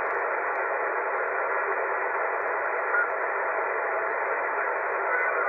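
Yaesu HF transceiver's receiver audio in single-sideband mode, tuned across the 15-metre band: a steady band-noise hiss with faint, garbled traces of distant voices.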